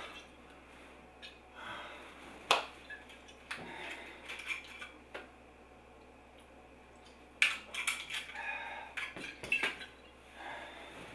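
Glass liquor bottle being handled: scattered sharp clinks and knocks, one about two and a half seconds in and a cluster of several about seven and a half to nine and a half seconds in.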